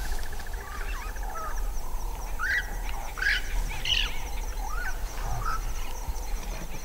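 Dusk wild ambience: a steady, high, pulsing insect trill, with short bird chirps scattered through it and a low steady rumble of wind underneath.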